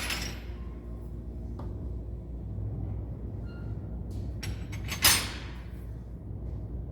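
Metal wrenches clinking and clacking as they are set one by one into a toolbox drawer organizer, with a sharp, loud clank about five seconds in. A steady low hum runs underneath.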